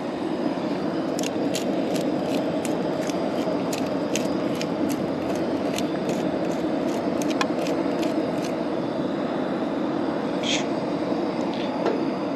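Hand pepper grinder cracking peppercorns: a run of short, crisp, irregular clicks, thinning out in the last third, over a steady low rushing background.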